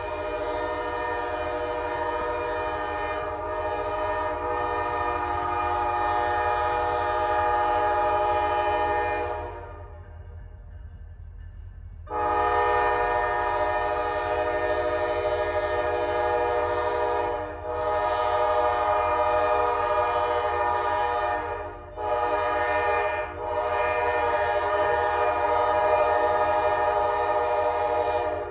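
Approaching diesel freight locomotive sounding its air horn in a grade-crossing pattern: a long blast, a pause of a couple of seconds, a second long blast, a short one, then a final long blast. A low steady rumble runs underneath.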